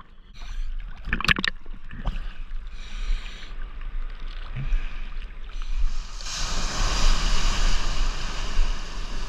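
Seawater sloshing and splashing against a camera held at the surface, with a couple of sharp splashes about a second in. From about six seconds in, a breaking wave's whitewater rushes around it with a steady hiss.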